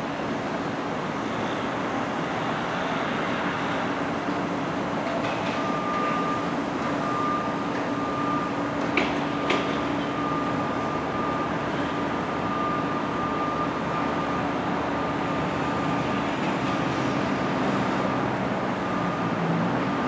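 Steady outdoor rumble of distant construction machinery and traffic, with a thin high steady tone through most of it and two short clicks about nine seconds in.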